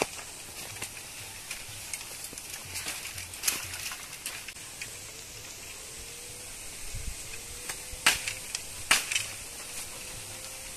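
Dry bamboo stems and brush crackling and snapping as they are pulled and broken by hand, in scattered cracks. The two loudest snaps come about a second apart near the end.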